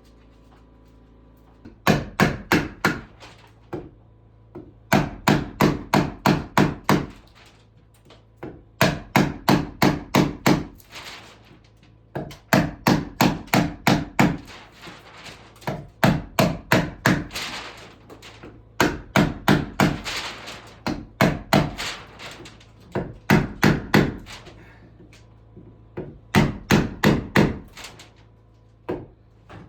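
A hammer driving nails into wood: about nine quick runs of sharp blows, roughly five a second, with short pauses between runs, over a faint low steady hum.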